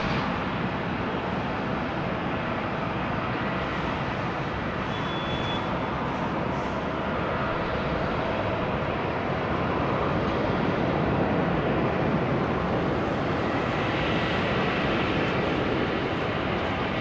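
Airbus A350-900's Rolls-Royce Trent XWB jet engines running at low taxi thrust as the airliner lines up on the runway for takeoff. A steady, distant jet rumble with a faint whine, swelling slightly about ten seconds in.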